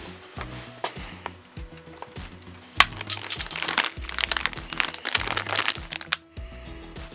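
Background music over the clicks and clinks of hand work on bicycle parts. A sharp click comes about three seconds in, followed by a few seconds of rattling, crinkling noise.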